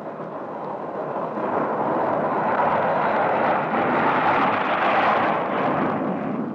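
Jet aircraft taking off: a rushing jet engine roar that builds over the first couple of seconds, holds at full power, and eases off near the end as the plane lifts away.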